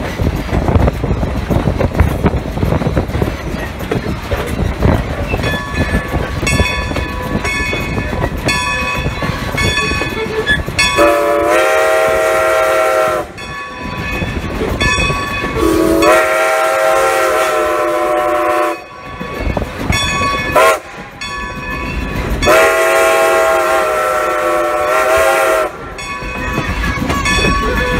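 Strasburg Rail Road No. 90, a 2-10-0 steam locomotive, running with its wheels and rods clattering, its bell ringing steadily from about six seconds in. From about eleven seconds in its whistle sounds the grade-crossing signal: long, long, short, long.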